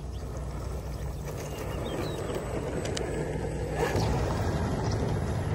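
RC off-road truck driven by a brushed 540-size 35-turn motor, running with a steady low drone from the motor and gearbox while its tyres crunch over dry grass and gravel. It gets louder about four seconds in, as the truck comes close.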